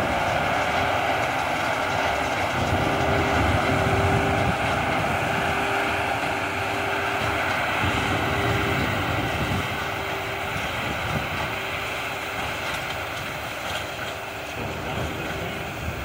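John Deere 7530 tractor's six-cylinder diesel running under load while pulling a Massey Ferguson 185 large square baler through hay: a steady mechanical drone with a hum that comes and goes about once a second, fading a little as the outfit moves away.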